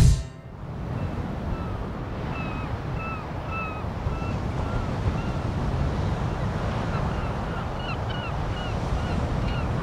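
Wind buffeting the microphone over the rush of surf breaking on a beach, a steady noisy haze. Over it a bird calls again and again in short chirps, about two a second, from about a second in.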